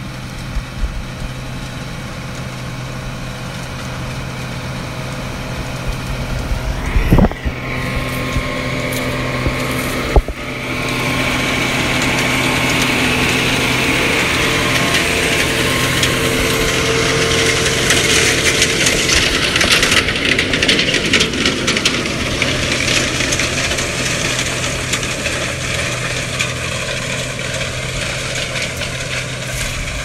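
John Deere 8295R tractor's diesel engine running steadily while it pulls a KMC peanut inverter digging through dry, very hard soil. The engine and the rattle of the digger and shaker grow louder from about ten seconds in as the rig comes close, with a short loud swish about seven seconds in.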